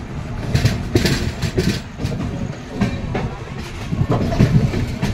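Passenger train coach rolling slowly over the track: a steady low rumble with irregular clattering knocks as the wheels cross rail joints and points.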